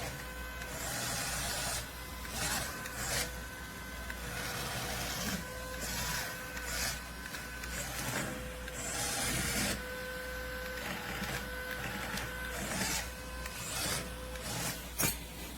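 Small electric motors of a remote-control wall-climbing gecko toy whirring with a thin whine, in short runs that stop and start again every second or two.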